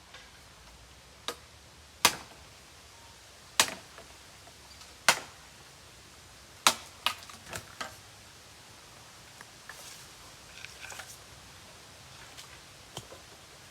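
A series of sharp knocks or strikes, one every one to two seconds, then a quick run of three or four, followed by fainter taps and a faint rustle.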